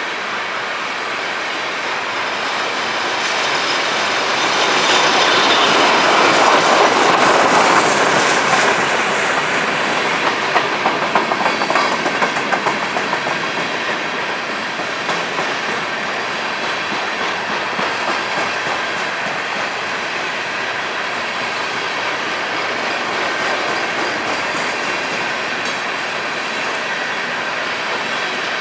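Empty coal train's hopper cars rolling past, with a steady rumble and clatter of steel wheels on the rails. It grows louder a few seconds in, with a run of sharp clicks from the wheels over rail joints, then settles back to a steady roll.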